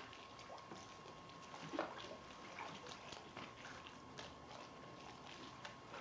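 Faint water lapping and small splashes in a swimming pool, a scatter of soft irregular ticks, one a little louder nearly two seconds in, over a thin steady high tone.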